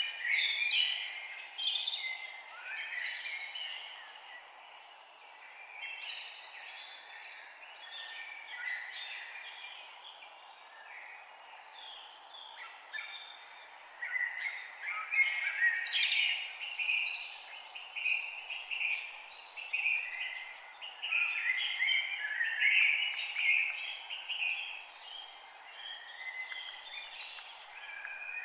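A dense chorus of many songbirds chirping and trilling at once, with busier stretches at the start and through the middle, over a faint steady hiss.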